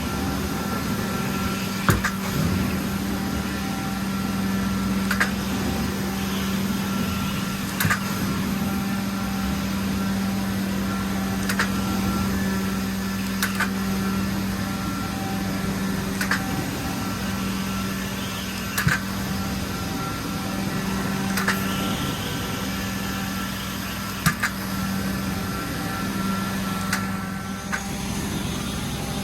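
Carpet cleaning extraction machine running with a steady hum, with a short sharp click every two to three seconds.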